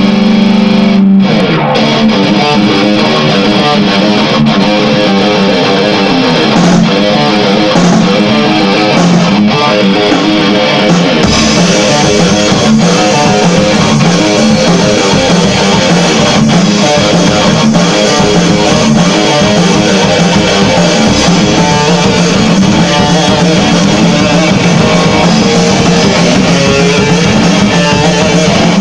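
Rock band jamming loud in a small room: distorted electric guitar over a drum kit. About eleven seconds in, the bass end gets heavier and the sound fuller.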